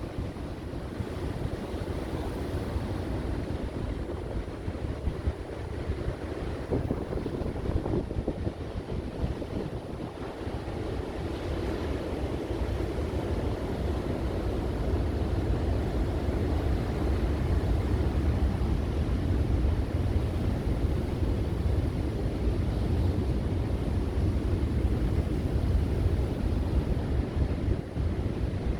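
Sea waves washing on the shore, with wind buffeting the microphone in a deep rumble; both grow louder about halfway through.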